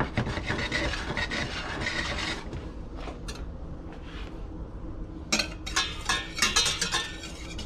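A rasping scrape for the first two seconds or so, then, from about five seconds in, a wire whisk rattling, clicking and scraping against a stainless steel saucepan as cream is whisked into a pan sauce.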